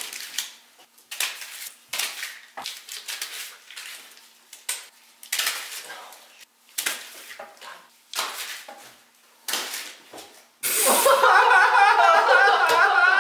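Several men laughing in short, separate bursts. About eleven seconds in, loud music with a singing voice cuts in.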